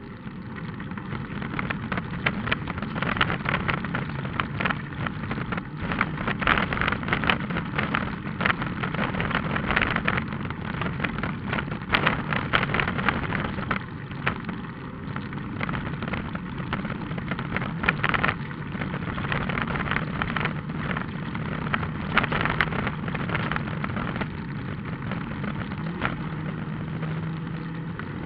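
Rally car driving along a gravel road, heard from inside the cabin: a steady engine hum with frequent clatter and knocks from loose stones and bumps.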